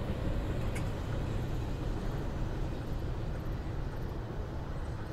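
Freight train of intermodal cars rolling past on the rails, a steady low rumble of wheels and cars that slowly fades.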